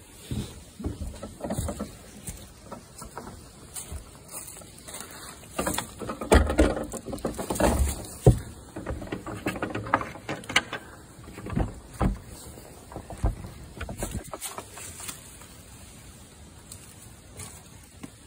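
Irregular rustling, crunching and knocking as someone moves through dry leaf litter and twigs with the phone bumping and brushing against things. It is busiest through the middle and dies down near the end.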